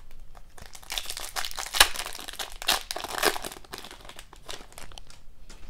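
Foil wrapper of a hockey card hobby pack crinkling and crackling as hands pull it open, in irregular bursts, loudest about two and three seconds in.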